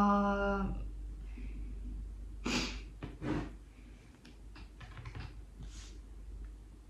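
A woman's short hummed "mmm" at the start, then the rustle, light clicks and taps of tarot cards being handled and laid down on a table.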